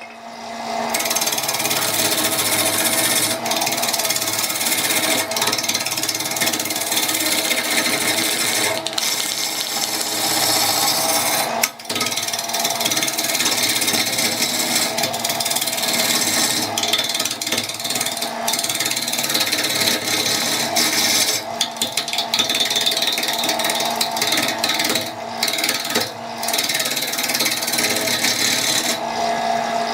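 Electric power tool running steadily and working wood: a constant motor hum under a dense rasping noise, with a brief drop about twelve seconds in.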